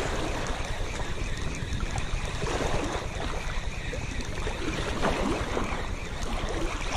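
Wind buffeting an action camera's microphone, with shallow sea water lapping and splashing around a rocky reef flat.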